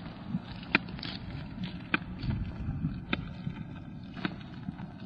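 Sharp, evenly paced taps of walking outdoors, about one every second, over a low rumble of wind on the microphone of an old tape recording.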